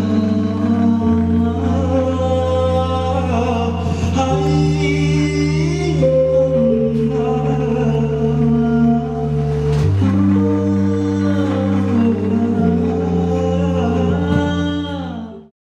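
Slow music of long held chords with a singing voice over them. It cuts off abruptly just before the end.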